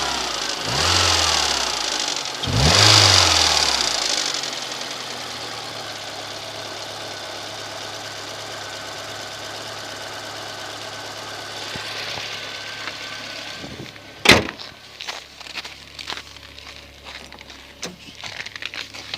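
VAZ 2110 8-valve engine, not fully warm, revved up twice in quick blips and then settling to a steady idle; the owner says a knock, which goes away once the engine is hot, still shows on revving at this stage though the idle is quiet. About fourteen seconds in a single loud bang, followed by scattered light clicks.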